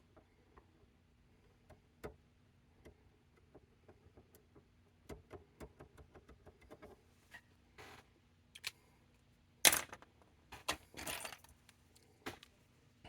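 Scattered light clicks and taps of hands and small tools working on an oscilloscope chassis, with louder scraping or rustling noises about ten and eleven seconds in.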